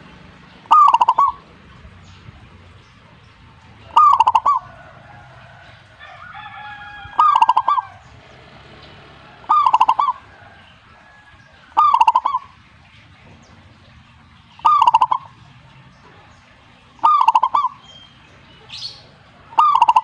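Zebra dove (perkutut) cooing: a short call of a few quick notes repeated about every two and a half seconds, eight times in all.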